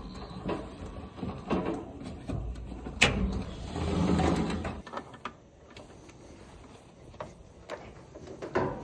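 Clicks, knocks and scraping from hands working inside a clothes dryer while a new drive belt is fitted. A sharp click about three seconds in leads into a louder rumbling stretch of a couple of seconds; after that come only occasional ticks.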